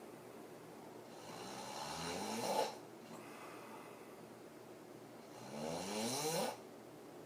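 A woman snoring very hard through an open mouth while sleeping on her back. Two long snores about four seconds apart, each rising in pitch and cutting off sharply.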